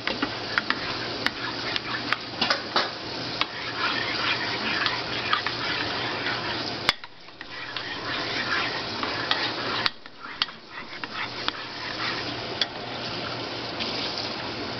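Metal spoon stirring and scraping thick grape jelly and barbecue sauce in a crock pot, with repeated clicks of the spoon against the pot. It goes quieter for a few seconds in the middle.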